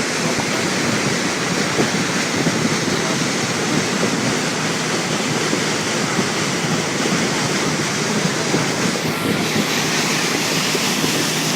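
Steady rushing noise of wind and moving water.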